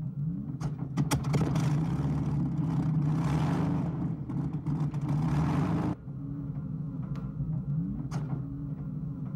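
Piston aircraft engine running with its propeller turning, much louder from about a second in until it drops off abruptly about six seconds in, then running on more quietly.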